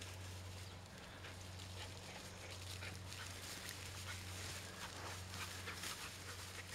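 Tall grass and brush rustling and swishing as a setter puppy runs through it, in quick irregular strikes over a steady low hum.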